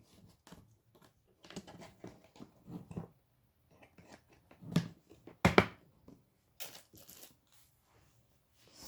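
A cardboard box being opened and its packaged contents handled: scattered rustles and scrapes, with two louder knocks about five seconds in.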